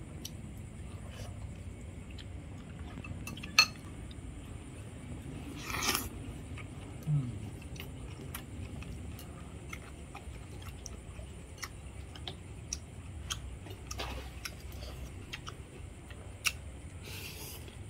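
Metal spoons and chopsticks tapping and clinking against ceramic bowls during a meal, in scattered light clicks over a low steady hum. The loudest is a sharp clink about three and a half seconds in.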